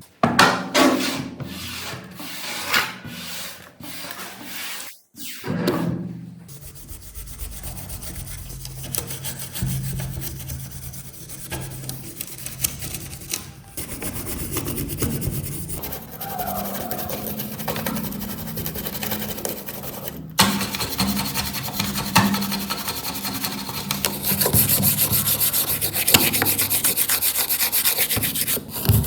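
Hand scraping and rubbing strokes on a hard surface: separate strokes for the first few seconds, then steady rubbing that grows louder near the end.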